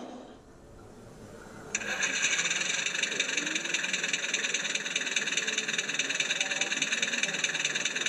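Sound module of a G-scale model diesel locomotive: after a short quiet start, a steady diesel engine running sound cuts in suddenly and holds evenly.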